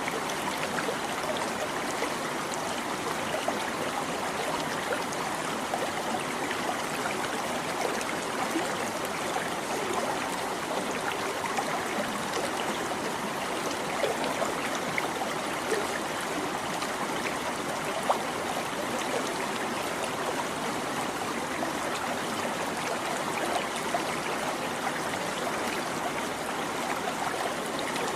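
Small stream running and babbling steadily, an even rush of water dotted with little bubbling splashes.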